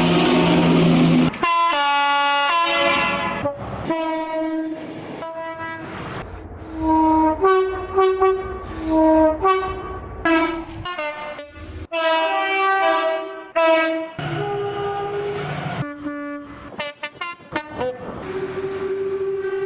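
Train horns from many different British trains, spliced one after another: short horn blasts, often switching between two tones, broken by abrupt cuts, with the rumble of passing trains under some of them.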